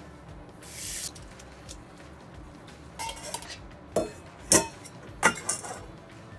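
Stainless steel bowl and mesh colander being handled, clinking and clattering with several sharp metal knocks in the second half, the loudest a little past the middle. A short hiss about a second in.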